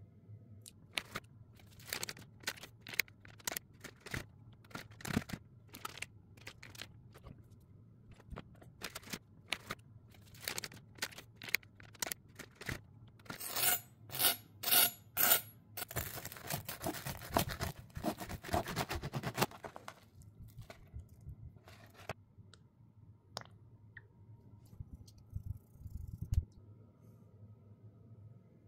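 A serrated knife sawing through a pan-toasted sandwich, the crisp bread crust crunching and scraping under the blade. Four quick loud strokes about halfway through lead into a few seconds of steady sawing. Scattered sharp clicks and taps come before and after.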